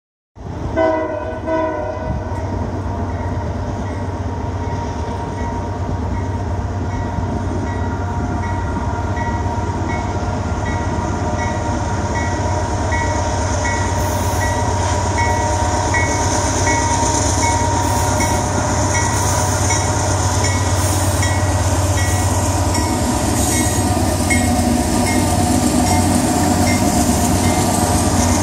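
Union Pacific freight train with three diesel locomotives approaching: a long horn sounding over a steady low diesel rumble. The rumble grows louder and noisier as the locomotives draw near.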